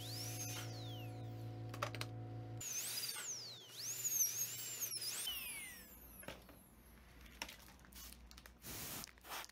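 High-speed dental handpiece whining while it finishes and polishes a composite filling on a front tooth. Its pitch swoops up and down as the bur is pressed against the tooth and eased off. A steady electrical hum runs under it for the first couple of seconds; the whine stops about five seconds in, leaving a few faint clicks.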